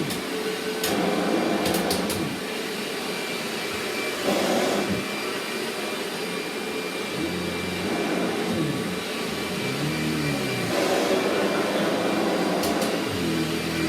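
Kirby Ultimate G upright vacuum cleaner running steadily with a thin whine, its sound swelling and shifting as it is pushed back and forth in more than one pass, with a few sharp ticks. The nozzle is set high, which is why it takes more than one pass to pick up.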